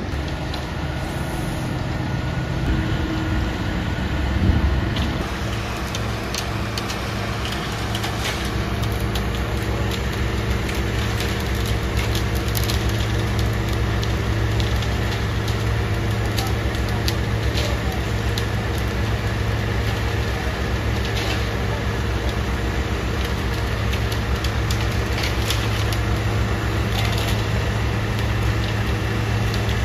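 Concrete mixer truck's diesel engine running steadily, with scattered gritty crackles and clicks over it. There is a brief louder surge about four seconds in, and the engine note settles after it.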